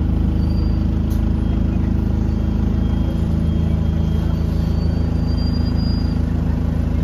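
Diesel engine of a Metroline DEL-class double-decker bus running under way, heard from inside the lower deck: a loud, steady low drone whose pitch shifts about three seconds in, with a faint high whistle near the middle.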